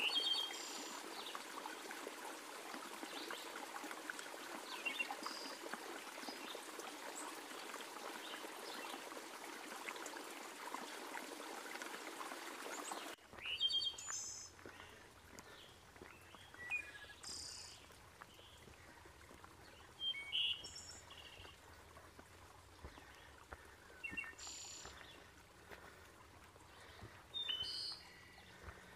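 Wild birds chirping over a steady rushing background noise, which drops away abruptly about halfway through, leaving scattered bird calls in a quiet forest.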